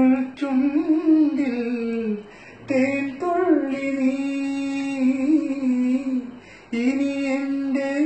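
A man singing a Malayalam film melody unaccompanied in a high voice, holding long notes and gliding between them, with two short breaks between phrases.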